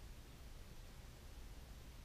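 Near silence: faint steady hiss and low rumble of room tone.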